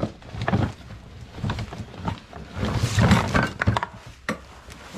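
Items being rummaged through and moved about: irregular knocks, clatter and scraping, busiest around three seconds in.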